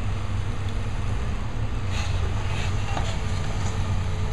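Demolition excavator's diesel engine running steadily, with a run of clanks and clatter about two to three and a half seconds in.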